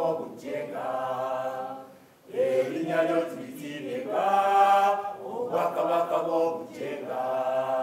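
A group of voices singing together in long held phrases, with a short break about two seconds in.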